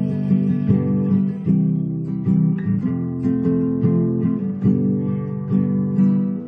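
Acoustic classical guitar strummed and picked in a steady rhythm, a new chord struck a little under once a second.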